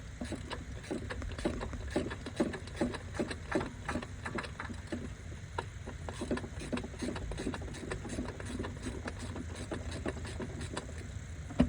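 Hand-tool work on the engine: a ratchet and socket clicking and metal clinking in short, irregular strokes, a few clicks a second, over a steady low hum.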